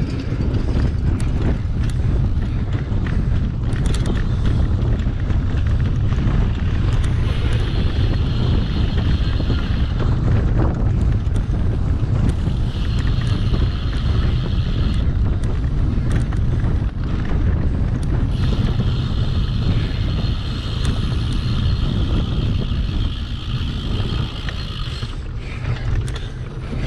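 Wind buffeting a GoPro microphone on a cyclocross bike ridden at race pace, over the rumble of the tyres on the course. A higher hiss comes and goes three times.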